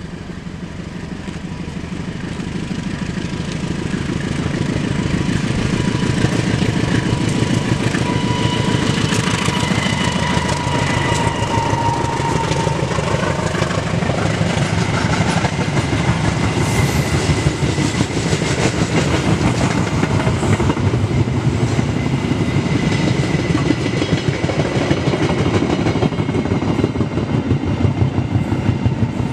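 Passenger train hauled by a CC201 diesel-electric locomotive approaching and passing close by. It grows louder over the first few seconds, then the carriages roll past with a steady rapid clatter of wheels on the rails.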